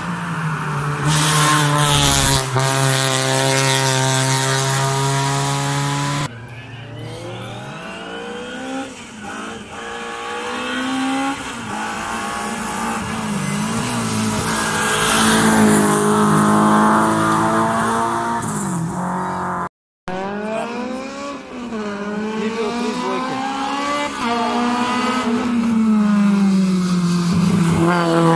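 Hillclimb race car engines at full throttle: a note held steady at first, then repeated rising revs that drop back at each upshift as cars climb towards and past the bend. The sound falls away suddenly about six seconds in and cuts out briefly about two-thirds of the way through.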